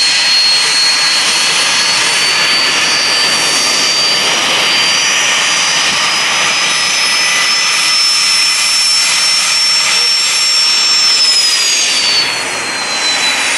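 Twin rear-mounted turbofans of a Cessna Citation business jet running at taxi power, a steady high whine over a rushing noise. The whine's pitch creeps slowly upward, then falls near the end.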